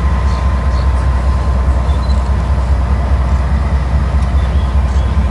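Norfolk Southern diesel freight locomotives passing with a steady low engine rumble, the last unit giving way to the first hopper cars near the end.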